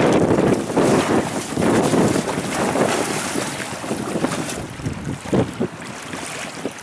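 Strong gusty wind buffeting the microphone in uneven surges, with choppy lake water splashing and lapping; the gusts ease off somewhat near the end.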